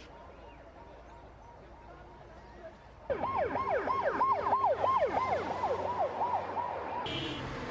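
An emergency vehicle's siren in fast yelp mode, sweeping up and down about four times a second. It comes in suddenly about three seconds in, after quieter background noise, and cuts off abruptly shortly before the end.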